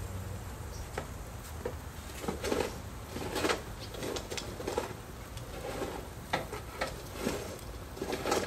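Metal tongs clinking and scraping against a barbecue grill's grate and meat skewers in irregular short knocks and rattles.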